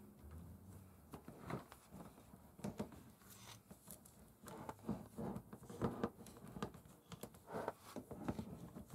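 Bar clamps being set on a glued-up wooden board: a run of irregular small clicks, clatters and rustles as the clamps are placed and tightened, busier in the second half, with the plastic sheet under the work crinkling.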